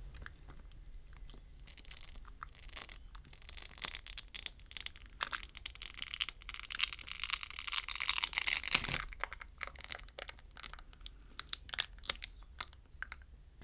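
Battery adhesive crackling and tearing as a Samsung Galaxy S23 battery is peeled up from the frame by its pull tab. A long, dense crackle builds from about four seconds in and is loudest just before nine seconds, then gives way to scattered small crackles.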